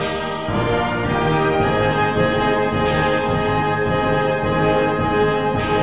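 Background orchestral music with sustained brass chords.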